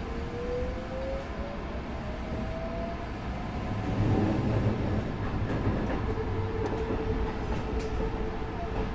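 Sanyo 6000 series electric train running, heard from the driver's cab: a motor whine rises in pitch over the first few seconds as the train gathers speed. About four seconds in, the rumble of the wheels on the track grows louder, and a steady whine carries on after that.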